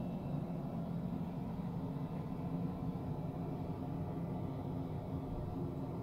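Steady low hum and rumble of a cruise ship's machinery and ventilation heard inside a small cabin bathroom, even and unchanging.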